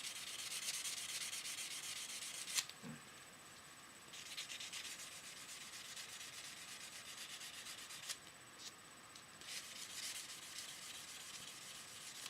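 An iPhone 3G/3GS bezel being rubbed by hand on a four-grade sanding block, refinishing a reclaimed part. It is a steady scratchy sanding in three stretches, broken by short pauses and a light click at each break.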